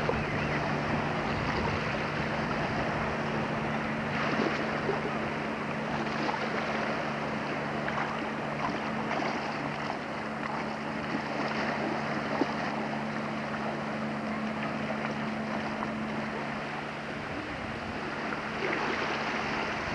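Steady wind and water noise on a camcorder microphone, heard as an even hiss, under a low steady drone from a distant motorboat.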